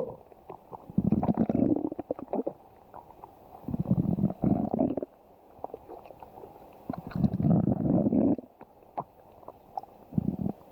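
A human stomach growling in about four low rumbling bouts, each lasting a second or so and coming roughly every three seconds, with faint clicks in between.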